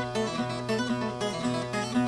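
Viola caipira music: an instrumental passage of quick plucked notes over a steady low bass.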